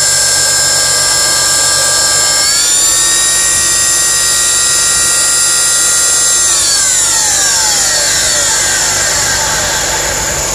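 Secondary air injection pump on a 2009 Mercedes W204 whining high after start-up, the weird start-up sound. It steps up a little in pitch about two and a half seconds in, then winds down and fades over a couple of seconds past the middle, leaving a low engine hum.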